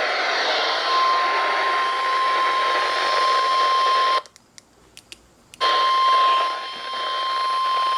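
NOAA Weather Radio warning alarm tone: one steady high tone over radio static, starting about a second in. It cuts out with a few clicks for about a second and a half, then resumes. It signals that a new warning broadcast is coming.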